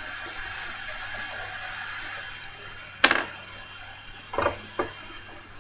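Sharp clicks and knocks from handling a subwoofer and hand tools while working on its screws: one loud knock about three seconds in and two softer ones over a second later.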